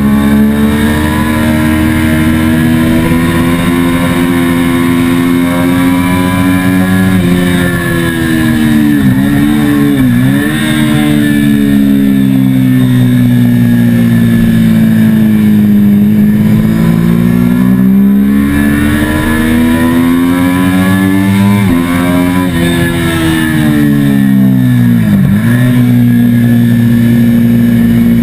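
Triumph sport bike's engine running hard on track, its pitch climbing slowly under acceleration and dropping sharply twice, about a third of the way in and near the end, as the rider slows for corners, with steady wind rush over it.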